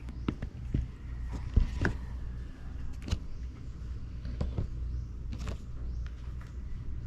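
Scattered light clicks and knocks over a low steady hum.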